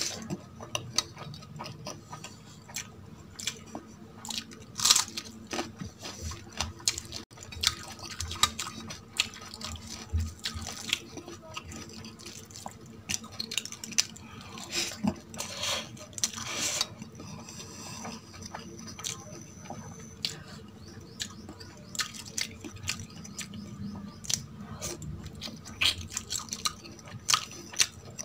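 Close-miked eating sounds: a person chewing with wet mouth clicks and smacks, in a steady run of short, irregular sounds.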